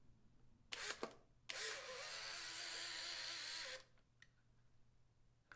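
Polaroid SX-70 Sonar instant camera firing: two quick clicks of the shutter and mirror, then the film-ejection motor runs with a steady whir for about two seconds. No print comes out: the film is jammed in the camera.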